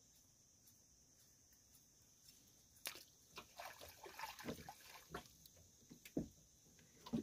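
A run of knocks, taps and small rustling splashes from handling at the side of a wooden outrigger boat, starting about three seconds in, with two louder thumps near the end. Underneath is a faint, steady, high-pitched drone.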